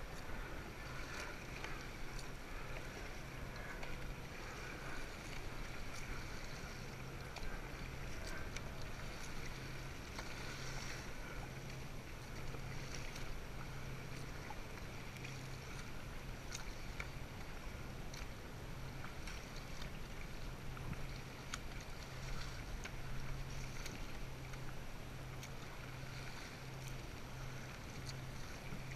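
Paddle strokes and choppy water sloshing and splashing against a sit-on-top kayak, with scattered small knocks and a low steady hum underneath.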